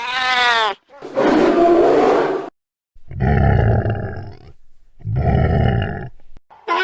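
Sea lion calling four times in a row: a short cry that rises and falls in pitch, a longer harsh call, then two deep, rough calls with short pauses between them.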